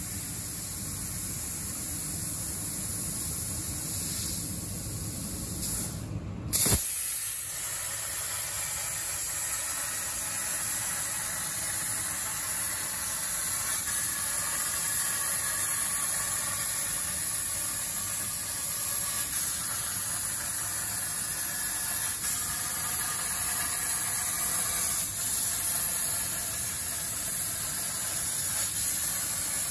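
CNC plasma torch cutting 4 mm Corten steel sheet, a steady hiss of the arc and cutting air. A single sharp crack about six and a half seconds in, after which the hiss runs steady.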